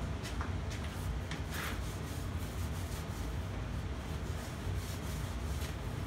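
Paper towel rubbing and rustling against the sheet-metal housing of an old Torcan box fan, in scattered short strokes, over a steady low hum.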